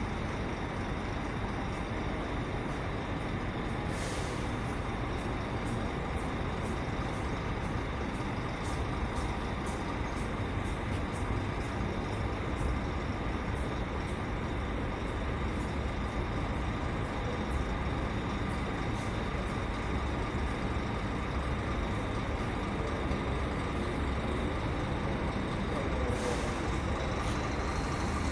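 Diesel bus engine running at idle with a steady low rumble. Compressed air hisses out in two short bursts, about four seconds in and again near the end, typical of an air-brake release.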